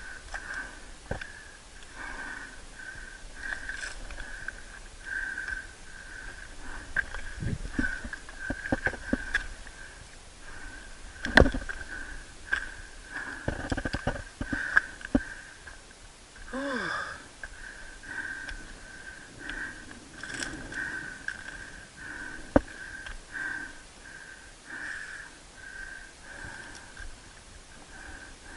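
A climber breathing hard in a steady rhythm while scrambling up rock, with a few sharp knocks from hands, feet or gear on the rock. The loudest knock comes about eleven seconds in.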